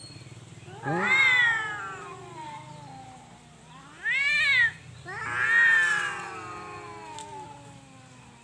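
Domestic cats yowling: three long, drawn-out calls that rise and fall in pitch, the middle one shorter. These are rival cats facing off over a female.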